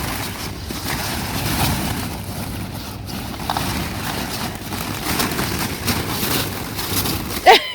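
Plastic ball-pit balls rustling and clattering continuously as a child digs and shifts through them, with a sharp louder click near the end.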